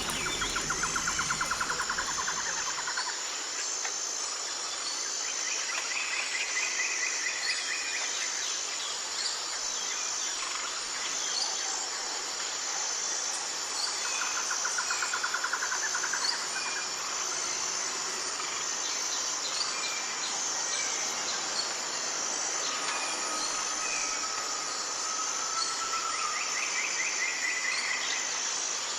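Insects trilling steadily and high-pitched in an even pulsing rhythm, with birds singing short rapid trills every several seconds and one longer whistled note near the end.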